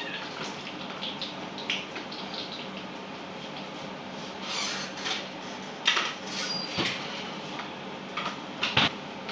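Kitchen clatter of cookware and utensils: scattered clinks and knocks over a steady background hum, with several louder knocks in the second half.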